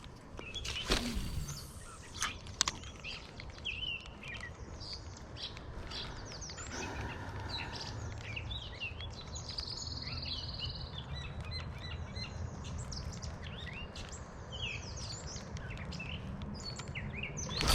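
Songbirds chirping and calling, many short chirps scattered throughout over a steady low background. A couple of sharp clicks about a second and two seconds in.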